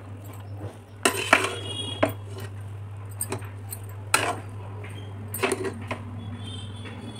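Steel spoon stirring and fluffing cooked rice in an aluminium pressure cooker, clinking sharply against the pot's side half a dozen times, with soft scraping between the clinks.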